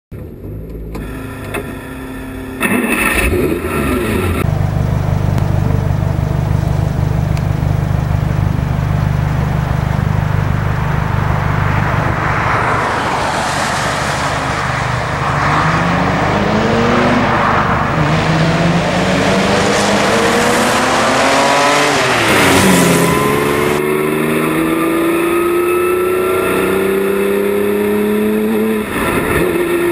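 Bailey 917 replica race car's engine: a deep steady rumble, then revving up through the gears in repeated rising sweeps. About 22 seconds in, the pitch rises and drops sharply as the car passes by, then it accelerates again in rising sweeps.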